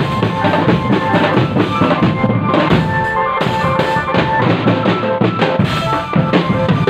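Indonesian marching drumband playing: rapid snare and bass drum beats, with held melodic tones sounding over the drumming.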